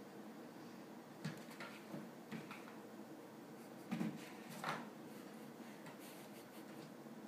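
A cat's paws knocking and scuffing on a doormat, floor and wall as it pounces after a laser dot: a few soft thumps and scrapes, the loudest about four seconds in.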